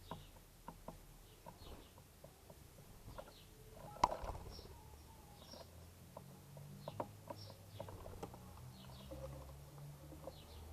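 Birds pecking at cracked corn: a scatter of quick light taps with one louder knock about four seconds in, and faint high chirps over them.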